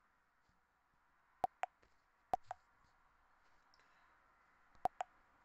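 Three pairs of short, sharp clicks from tapping a smartphone's touchscreen while switching between apps, over a faint steady hiss.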